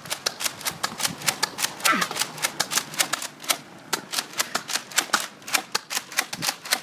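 A rapid, irregular run of sharp plastic clicks, several a second, from Nerf blasters being handled.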